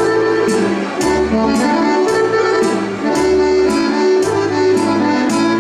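Accordion-led Serbian folk dance music for a kolo, played at a brisk, steady beat.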